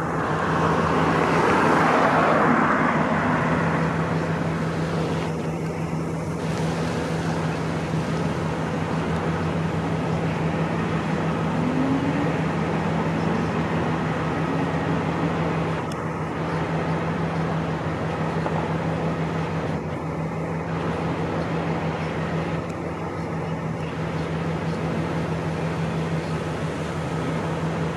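Steady road traffic noise with a low steady hum underneath; one vehicle passes louder about one to three seconds in.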